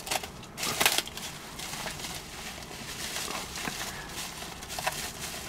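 Plastic bubble wrap crinkling and rustling in the hands as it is pulled open and unwound from a wrapped object, with a louder crackle about a second in.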